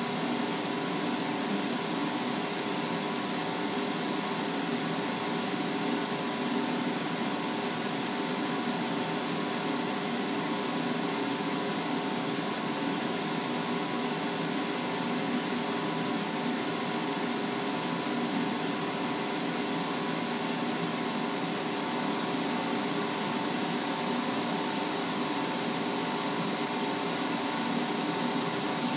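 Laser engraving machine running as it engraves: a steady whir with a few held humming tones in it.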